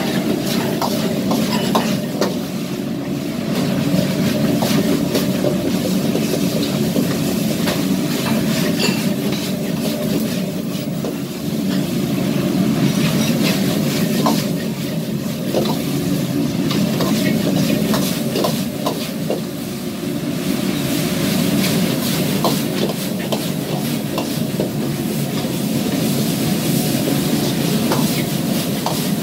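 Stir-frying in a wok over a gas wok burner: a steady burner roar under the sizzle of food, with a metal ladle scraping and clinking against the wok as the ingredients are tossed, scattered through the whole stretch.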